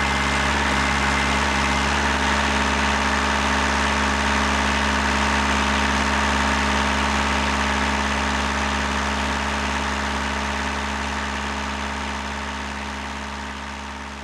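Hydraulic power unit of a single-ram truck rim crusher running at a steady hum while the ram presses a car tire off its rim. The sound fades away gradually over the last few seconds.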